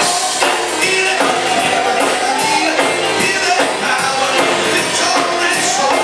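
Live worship band playing an upbeat song with singing, drums and tambourine.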